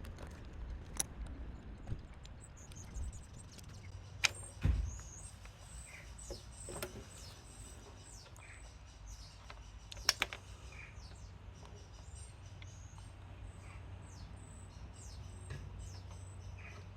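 Small birds chirping repeatedly in the background over a steady low hum, with a few sharp clicks and knocks, the loudest about four to five seconds in and again about ten seconds in.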